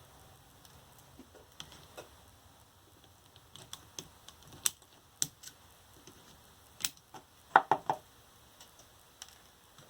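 Scattered sharp metallic clicks and snaps of nickel connector strips being snipped and pried off the 18650 cells of a scooter battery pack. A quick run of three louder snaps comes about three-quarters of the way through.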